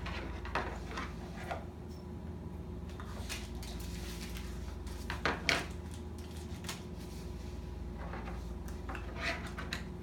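Small plastic toy container being handled and twisted on a table: scattered soft clicks and taps, two louder ones about five seconds in, over a steady low room hum.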